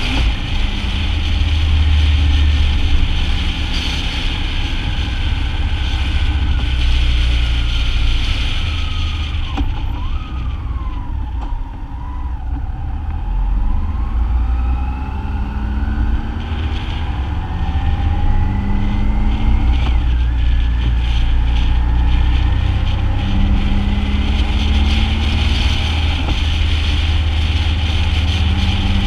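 BMW motorcycle riding with engine rumble and heavy wind rush. It slows for a roundabout about a third of the way in, with the wind dropping and the engine note falling, then accelerates away, the engine pitch rising through the gears and the wind building again.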